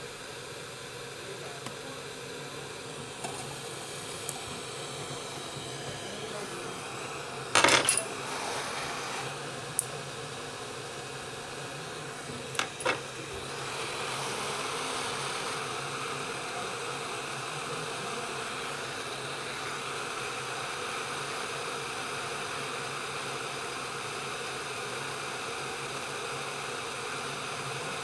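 Hot-air rework station blowing a steady airy hiss with a hum over an iPhone 5s logic board, heating it to lift the U2 charging chip; the airflow gets louder about halfway through. Earlier come a few sharp metallic clicks, the loudest cluster about eight seconds in.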